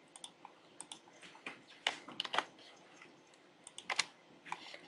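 Typing on a computer keyboard: scattered, irregular keystrokes in small clusters with short pauses between.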